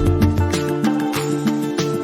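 Background music: an upbeat tune on plucked strings, guitar-like, with a bass line and a steady beat.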